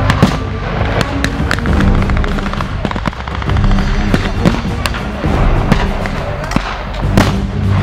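Battle-reenactment pyrotechnics and gunfire: a string of sharp bangs and shots, the loudest right at the start and again near the end, over background music.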